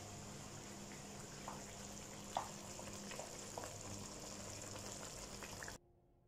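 Faint steady bubbling and sizzling of a pot of chicken egado simmering on the stove, with a low hum and a few light clicks. It cuts off abruptly near the end.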